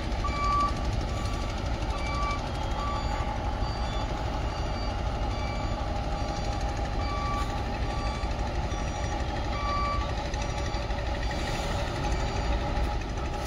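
Demag AC 200-1 mobile crane's engine running steadily, with the crane's electronic warning beeper giving short high beeps about once a second, dropping out at times.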